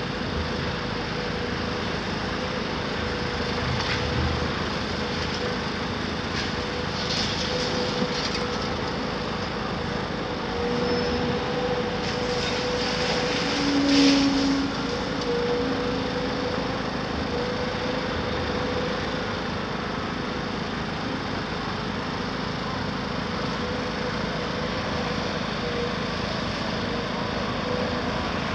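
Caterpillar 374F hydraulic excavator running steadily under load with a constant hydraulic whine, while its demolition crusher works on the building; stretches of clattering demolition debris come about 7 seconds in and again around 12 to 15 seconds, loudest near the 14-second mark.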